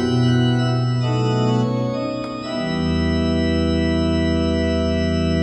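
Electronic organ playing alone without the voices, its closing chords: the harmony shifts about a second in, then a full, low chord with deep pedal bass comes in near the middle and is held steady.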